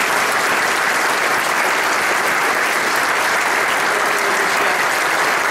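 A dinner audience applauding steadily, a dense, sustained clapping from many hands at the close of a speech.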